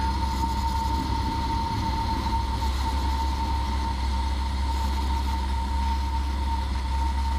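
Cessna 172P Skyhawk's four-cylinder Lycoming engine and propeller droning steadily in flight, heard over the intercom audio, with a steady high-pitched electrical whine running over it.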